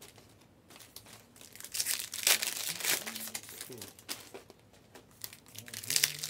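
Foil trading-card pack wrappers crinkling and rustling in short bursts as they are handled, with a quiet pause in between. Faint voices are heard in the background.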